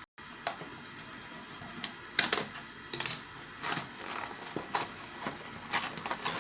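Irregular crinkles and clicks of a packet of whipped-cream (chantilly) powder being handled and opened.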